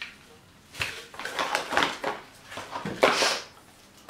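Plastic bag packaging crinkling and rustling as cables are unwrapped and handled, in a run of short irregular rustles, the loudest about three seconds in.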